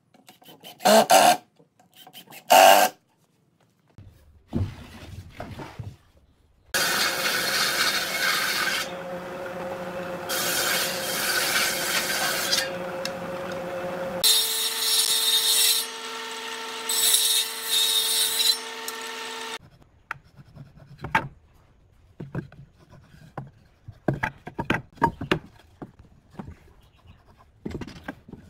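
A few short bursts from a handheld power tool driving into wood, then a table saw on a combination woodworking machine running and cutting boards for about thirteen seconds, with louder surges as the wood goes through and a change in tone about halfway, before it stops abruptly. Then light wooden knocks as cut sticks are handled and set down.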